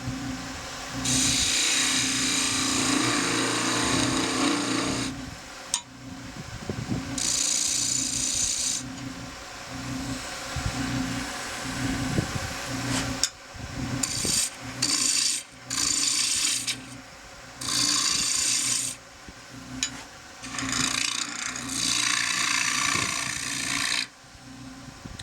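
Wood lathe turning a pear-wood spindle while a turning tool cuts it in repeated passes, each a hissing cut of one to a few seconds that starts and stops over the lathe's steady hum.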